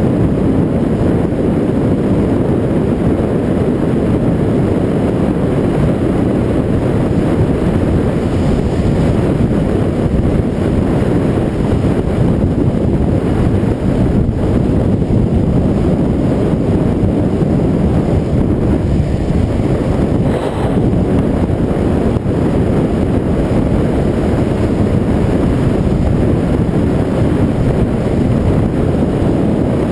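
Steady low wind roar buffeting a bicycle-mounted GoPro's microphone while riding.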